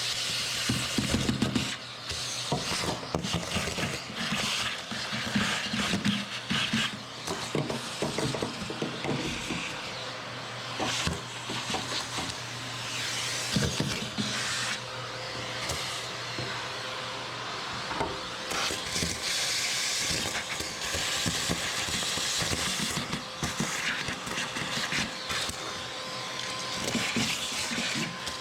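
Hand work on a car's wheel arch: irregular clicks, knocks and rubbing of tools against plastic and metal parts as they are refastened. A steady low hum runs underneath and stops about halfway through.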